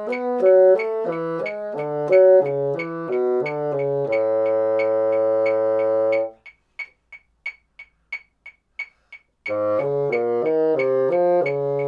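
Moosmann bassoon playing a quick exercise in fourths against a metronome, one note per click, ending on a long low held note about four seconds in. After a pause of about three seconds where only the metronome clicks, about three times a second, the bassoon starts the pattern again.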